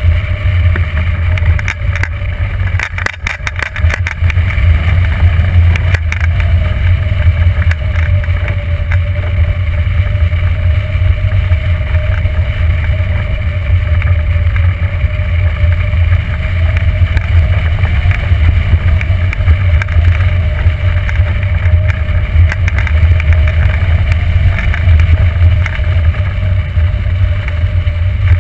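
Steady airflow rushing over a hang glider's wing-mounted camera microphone in flight, a heavy low rumble with a faint, slightly wavering tone above it. A few brief clicks sound about three seconds in.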